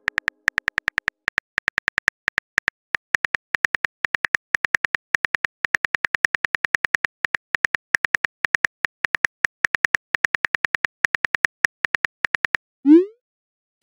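Phone keyboard typing clicks, a rapid even run of about eight key-taps a second as a text message is typed. They stop near the end, and a short rising whoosh follows as the message is sent.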